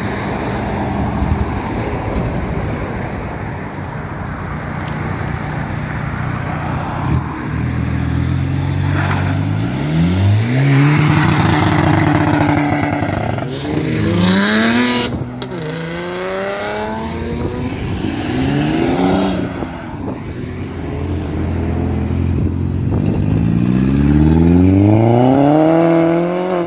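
Car engines accelerating away one after another, each revving up with a rising pitch through the gears, after a steady engine drone at the start. The loudest pull comes near the end, and there is one brief sharp crack about fifteen seconds in.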